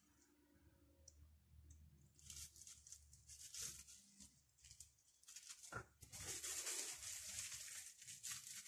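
Faint crinkling and crackling of a plastic film sheet as hands roll and shape croissant dough on it, growing busier about six seconds in.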